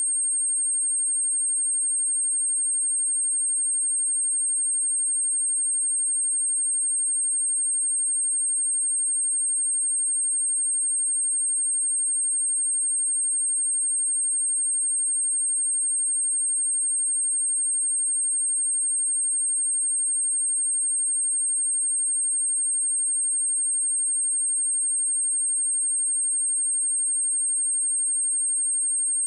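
A pure 8544 Hz sine-wave test tone, one steady high-pitched whistle with no change in pitch or level. It is played to test speakers and headphones and to clear water and dust from a speaker.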